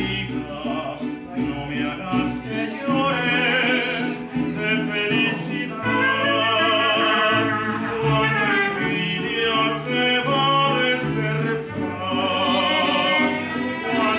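A man sings a bolero with a mariachi band, holding long notes with a wide vibrato. Beneath him the guitarrón plays sustained bass notes and guitars strum the accompaniment.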